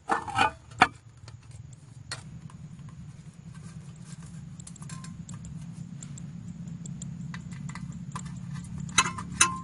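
Metal parts clicking and clinking as a homemade attachment is fitted by hand onto a brush cutter's cutting head. There are sharp knocks in the first second and again near the end, and a steady low hum runs underneath from about two seconds in.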